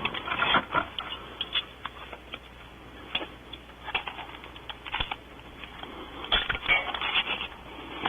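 Irregular clicks, taps and rustling from objects being handled close to the microphone, bunched in flurries about half a second in, near four seconds and again between six and seven seconds.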